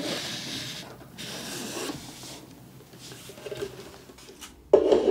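Clear plastic sleeve rubbing as a roll of cotton candy is slid out of it, in two stretches of rasping over the first couple of seconds, then fainter. A brief louder low sound comes near the end.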